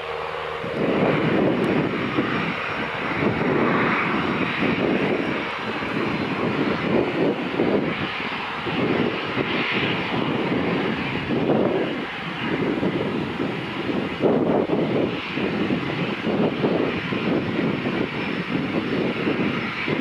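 A Boeing 737 airliner's twin turbofan engines running as it taxis and turns on the runway. A dense jet rumble steps up about a second in, then rises and falls unevenly, with a faint high whine above it.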